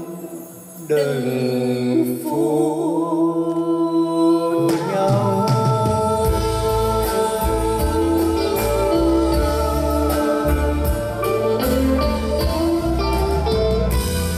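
A man and a woman singing a slow Vietnamese love song as a duet with a live band. The voices hold long notes with vibrato, and about five seconds in the band's bass and drums come in beneath them.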